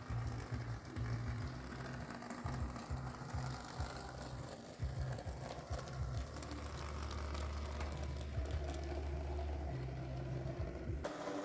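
Background music over the running of an N-scale model train: the small locomotive's motor whirring and its wheels clicking on the track as it pulls a string of hopper wagons.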